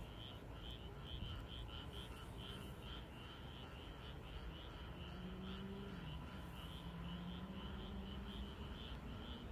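Frogs calling in an even, pulsing rhythm, about two calls a second. A low steady hum comes in about halfway through.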